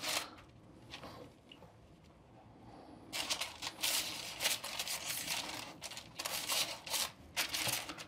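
Parchment paper crinkling and rustling under hands that press and pinch a dough crust shut, quiet at first, then a string of short rustles from about three seconds in.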